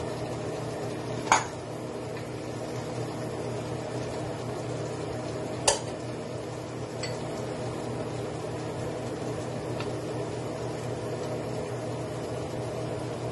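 Kitchen cookware clinking: a glass bowl knocks sharply against the cooking pot or ladle twice, about a second in and again about halfway through, with a few lighter taps, over a steady low hum.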